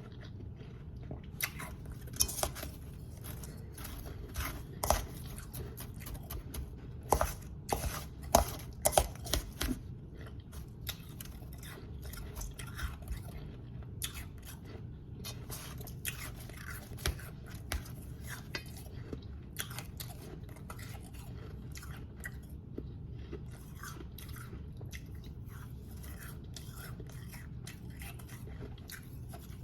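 Close-up crunching of powdery snow ice being bitten and chewed, in irregular crisp crunches, loudest and most frequent in the first third, over a steady low hum.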